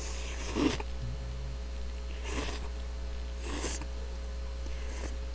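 A man slurping instant cup-ramen noodles: four short slurps a second or more apart, the last one faint, over a steady electrical hum.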